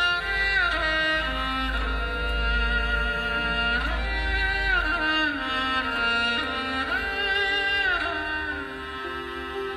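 Background music led by a bowed string instrument playing held notes that slide up and down between pitches.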